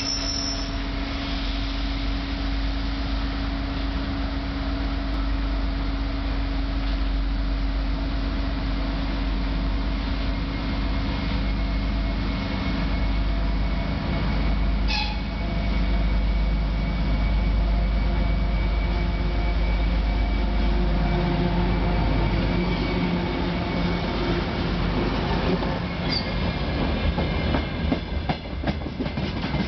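Class 2M62 twin-section diesel locomotive approaching with its two-stroke diesel engines running, its hum strengthening in the second half. It passes close by near the end, followed by the rapid clatter of freight wagon wheels over the rail joints.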